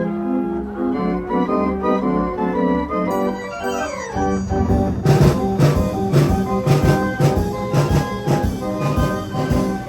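Antique orchestrion, a mechanical one-man band, playing a tune on organ pipes; about three seconds in a note slides downward, and from about five seconds in drums and percussion join with a steady beat.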